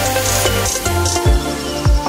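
Electronic background music: held synth chords over a deep, steady drum beat.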